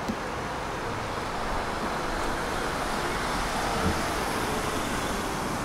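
Street traffic noise, with a delivery van driving past close by and growing a little louder through the middle. There is a short low knock about four seconds in.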